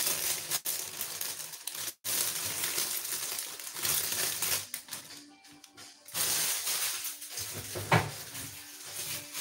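Plastic salad bag crinkling and rustling as the leaves are shaken out into a colander, with a sharp knock near the end, over background music.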